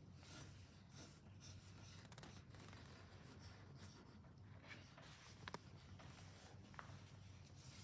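Pencil sketching on paper: faint scratchy strokes one after another, with a couple of light ticks past the middle.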